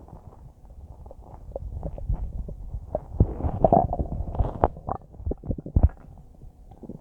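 Human stomach gurgling as it churns a huge, just-eaten bowl of spaghetti: a run of small pops and bubbling gurgles, busiest and loudest from about three to six seconds in.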